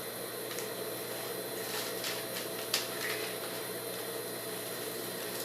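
Scissors cutting out a clothing pattern piece: a few soft snips and paper rustles over a steady background hum.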